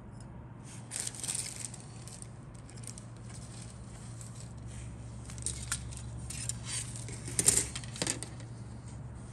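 Plastic model kit sprues being handled: scattered light clicks and crinkling rustles, loudest about a second in and again around seven and a half seconds in, over a steady low hum.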